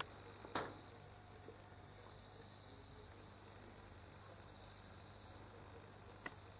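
A cricket chirping steadily and faintly in short, high, evenly spaced pulses, about three a second, over a faint low hum. A single soft knock comes about half a second in.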